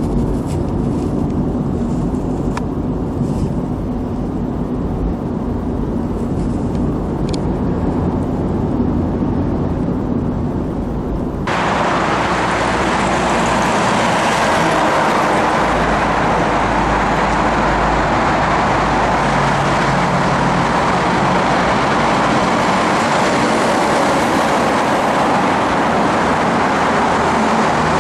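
Car driving on a highway: steady engine and road rumble. About eleven seconds in it changes suddenly to a louder, steady hiss of tyre and wind noise.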